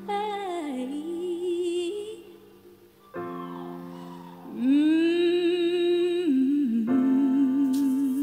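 A solo female voice sings a wordless intro over piano chords, gliding down and then holding long notes with vibrato. New chords come in about three seconds in and again near the end, and the loudest long note rises in just after the second chord.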